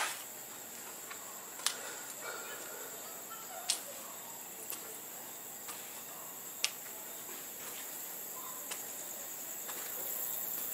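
Crickets chirping in a steady, high, continuous drone, with a few sharp clicks scattered through it.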